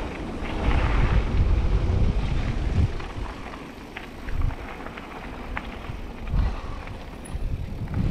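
Wind buffeting the microphone over the rumble of a mountain bike rolling down a rough trail, heaviest in the first few seconds, with scattered sharp clicks and knocks of the bike rattling over bumps.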